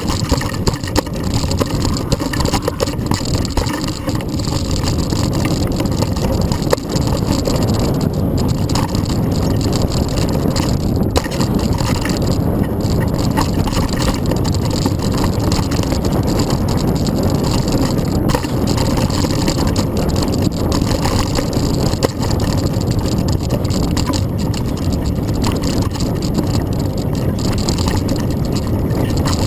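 Hardtail mountain bike rolling fast down a dirt trail, heard through a handlebar-mounted camera: a continuous rumble of tyres on dirt with frequent knocks and rattles from the bike over bumps.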